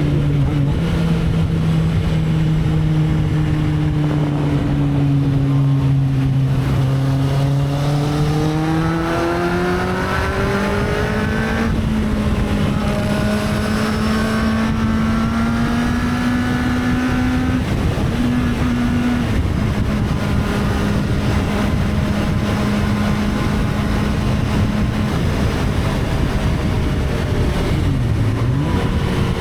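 Motorcycle engine running under way over wind and road noise: its pitch holds steady, climbs as it accelerates between about seven and twelve seconds in, then holds steady again, and dips and recovers twice near the end.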